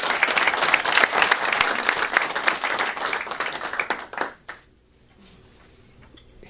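Audience applauding, then fading out about four seconds in.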